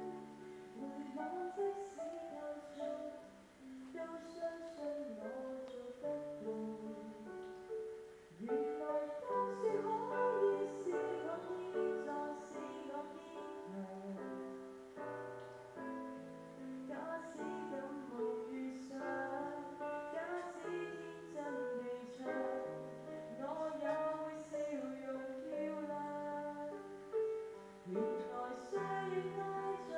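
A female voice singing a slow song over piano accompaniment.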